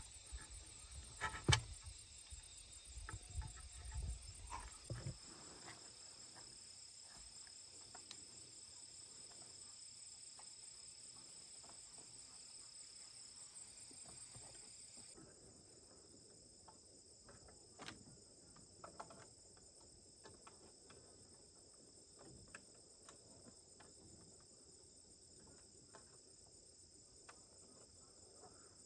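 Steady high-pitched chirring of insects, with low knocks and handling of bamboo poles in the first few seconds and one sharp knock about a second and a half in; a few faint taps follow later.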